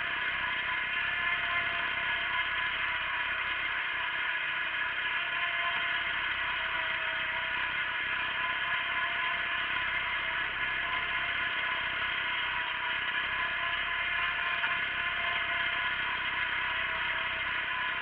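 Wheel Horse garden tractor engine running steadily, pulling a single-bottom plough through the soil.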